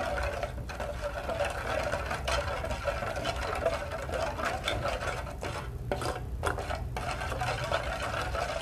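Metal spoon stirring and scraping around the bottom of a metal saucepan, mixing grass-jelly powder and sugar into a small amount of water, with quick pauses in the scraping about six seconds in.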